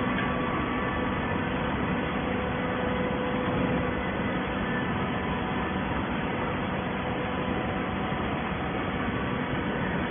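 Cardboard baler machinery running: a steady mechanical noise with a faint, even hum and no breaks.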